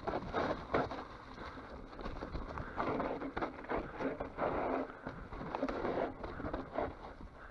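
Mountain bike riding down a rough, rocky trail: tyres rolling and crunching over dirt and stones, with uneven rattling and a few short knocks from the bike.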